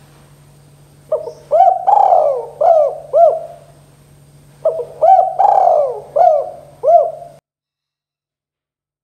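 Spotted dove cooing: two phrases of about five arched coo notes each, the middle note of each the longest, about three and a half seconds apart, over a faint steady low hum. The sound cuts off suddenly near the end.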